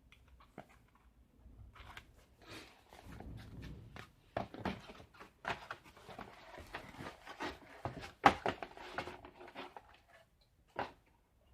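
Packaging and items being handled by hand: irregular rustling and crinkling with scattered clicks and knocks, the loudest a sharp knock about two-thirds of the way through.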